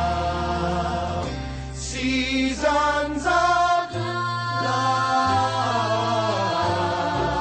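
Music with choir-like singing over held bass notes that change every second or two.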